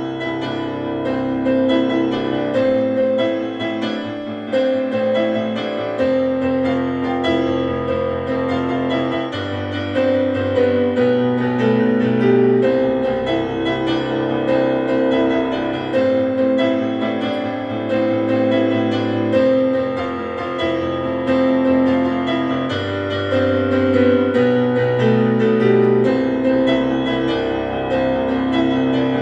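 Piano-led background music, steady chords with a low bass line changing every few seconds.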